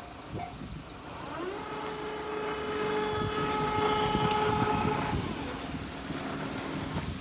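Train passing a railway level crossing. The rumble of the train builds and eases, and over it a horn sounds about a second and a half in, held at one steady pitch for about three and a half seconds.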